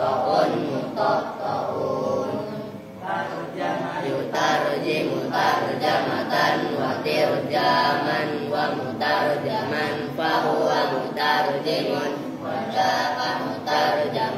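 A group of boys chanting Arabic verb conjugation patterns (tasrif) in unison, a rhythmic sing-song recitation of many overlapping voices that dips briefly about two seconds in.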